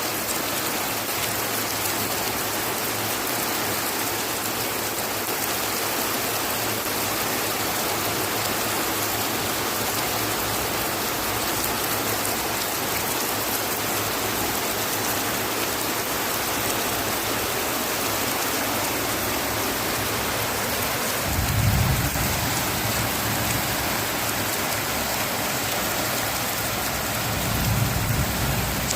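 Steady rain falling, an even hiss throughout. A low rumble swells twice, about two-thirds of the way through and again near the end.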